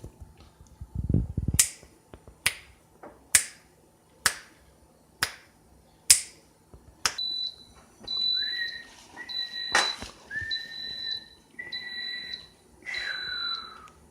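A cooking timer or appliance counting down: sharp clicks about once a second, then, about seven seconds in, a repeating high electronic beep with a lower tone under it, signalling that the cooking time is up.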